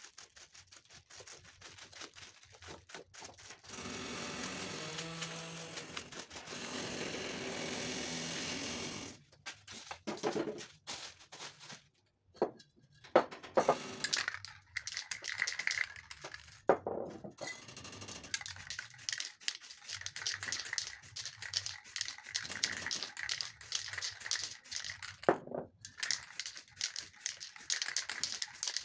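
Crumpled plastic bag crinkling and rubbing against the wet spray paint on poster board, with a steady spray-can hiss lasting about five seconds in the first third. This is followed by quick, repeated rubbing and scraping strokes across the board.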